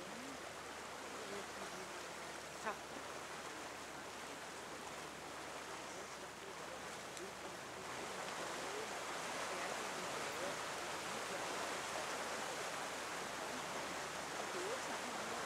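Steady rushing water noise around a boat among floating glacier ice, growing louder about halfway through, with a single faint knock near the start.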